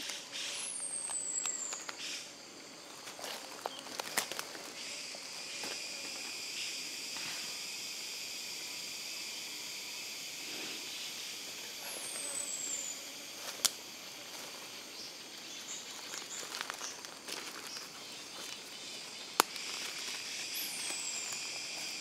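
Forest ambience: a steady high insect drone, with a bird's high falling whistle three times, about ten seconds apart. Two sharp clicks stand out, one about halfway through and one near the end.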